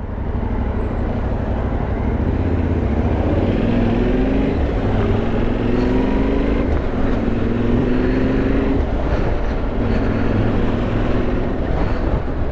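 Yamaha Ténéré 700's parallel-twin engine running under way, its pitch rising about four times as the bike pulls ahead and accelerates, over a steady low rumble and road noise.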